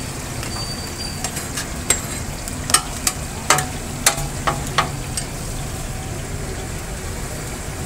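Chapli kababs sizzling and frying in oil on a large flat steel tawa. A metal spatula clinks and scrapes against the pan about eight times in the middle.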